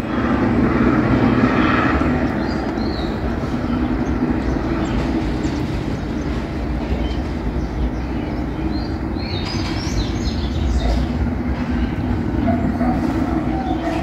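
Police helicopter flying past at a distance, its rotors and engine making a steady drone that is a little louder in the first couple of seconds.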